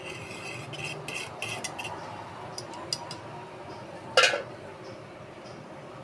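A metal utensil stirring and clinking against a bowl, in quick taps over the first two seconds, with one loud clank about four seconds in.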